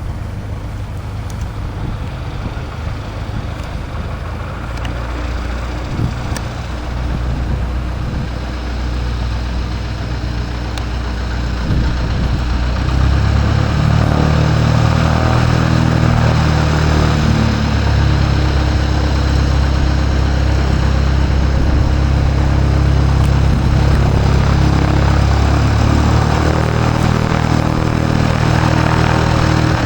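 An engine running with a steady low drone that gets louder about twelve seconds in and then holds.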